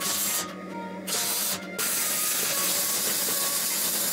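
Electric arc welding on steel: the arc crackles and hisses, stopping briefly twice in the first two seconds, then runs unbroken to the end.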